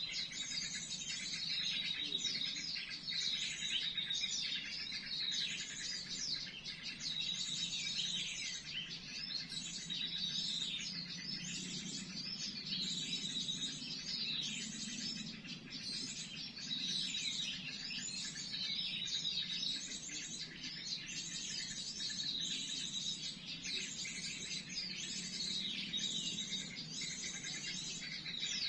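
Small songbirds calling continuously, a busy stream of quick, repeated falling chirps, with a low steady hum underneath.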